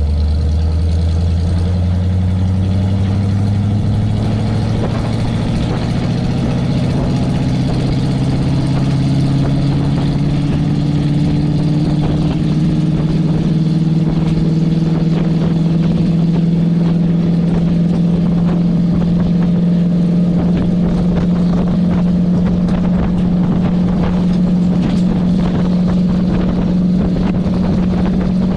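1980 Chevy K20's 350 small-block V8 with glasspack exhaust pulling a loaded trailer. The engine note rises steadily for about twelve seconds as the truck gathers speed, then holds steady at cruise over road and wind noise.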